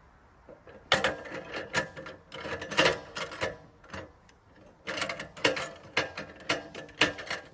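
Metal clicking and clanking in two spells of about three seconds each, from a portable sawmill's log dog clamps being worked by hand to grip the log.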